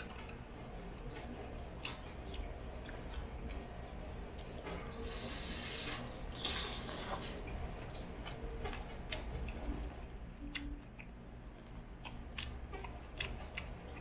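Cutlery clicking and scraping on a plate while a meal is eaten, with scattered small clicks and a longer scraping stretch about five to seven seconds in.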